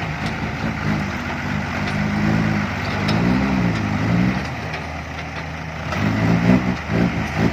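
A 165-horsepower diesel dump truck's engine revving up and down as the truck drives, rising in pitch about three seconds in and again near the end.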